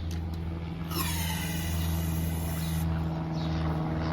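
One hiss of about two seconds from an aerosol can of ether starting fluid sprayed into the carburetor intake of a Tecumseh snowblower engine, over a steady low hum.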